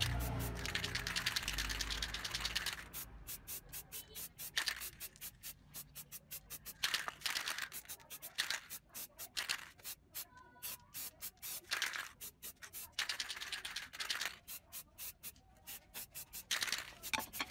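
Aerosol spray paint can hissing in three bursts of a second or two each, with rapid clicking between the bursts.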